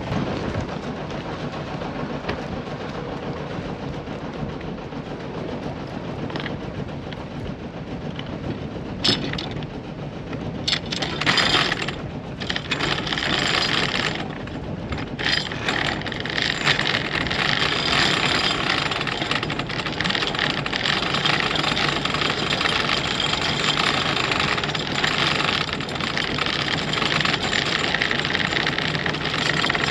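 Sailboat's inboard engine running steadily under way, with wind rushing over the microphone that grows louder about twelve seconds in and stays loud.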